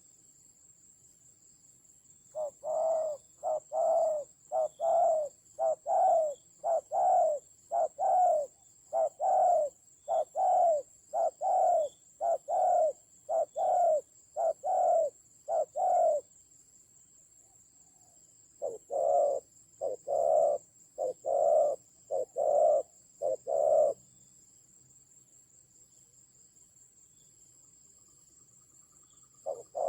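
Spotted dove cooing: short low coo notes repeated evenly, about one and a half a second, in a long run and then a shorter one after a pause. A faint steady high-pitched whine sits underneath.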